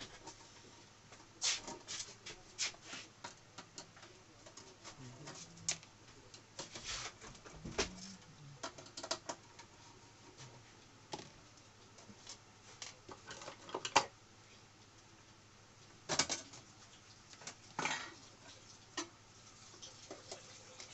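Screwdriver undoing the screws on a car stereo's sheet-metal case, then the case being pulled apart. Scattered sharp clicks, short scrapes and light metallic taps, the loudest a few seconds past the middle.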